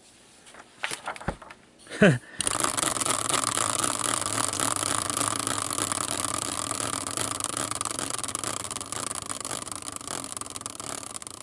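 Hand-spun prize wheel on a metal stand: a few knocks as it is grabbed and pushed, then about two seconds in a sudden steady whirring hiss that slowly fades as the wheel spins down.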